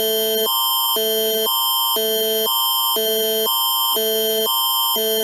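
Canadian Alert Ready attention signal: an electronic alarm tone that switches between two chords every half second, with one high tone held steady under both, announcing an emergency alert.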